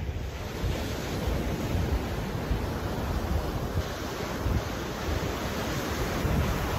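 Ocean surf breaking and washing up a sandy beach, a steady rush of waves, with wind buffeting the microphone.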